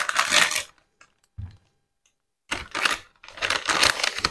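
Plastic packet of chocolate compound crinkling in several short bursts as it is handled, with one dull knock about a second and a half in as the slab of milk compound drops into a steel bowl.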